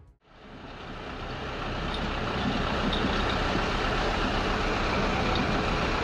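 A heavy vehicle's engine running steadily, fading in over the first two seconds.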